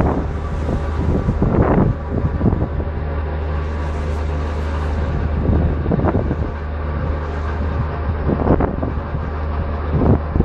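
Steady low hum of the car ferry's engines, with several gusts of wind buffeting the microphone.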